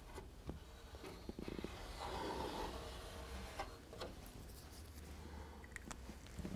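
Faint soft scratching of a marker pen drawn along a plywood baseboard to mark a cutting line, with light clicks and taps from handling the board and pen.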